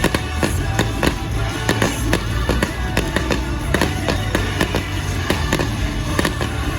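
Fireworks popping and crackling in quick succession over loud show music.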